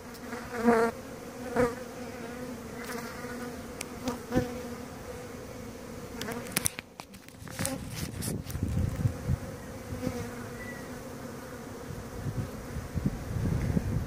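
A mass of honeybees buzzing in a steady hum as they swarm over an open hive box. A few sharp clicks come about halfway through.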